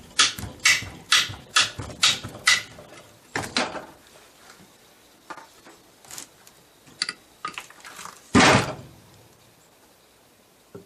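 Hammer striking a drift punch to drive the reverse idler shaft lock pin in a cast-iron three-speed transmission case. A quick run of about seven blows comes roughly two a second, then a single blow, a few light taps, and one louder clank about eight seconds in.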